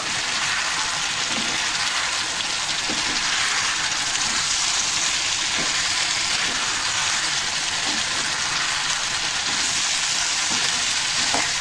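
Chicken pieces coated in ground pepper masala sizzling steadily in a nonstick pan while a spatula stirs them, with a few faint scrapes of the spatula.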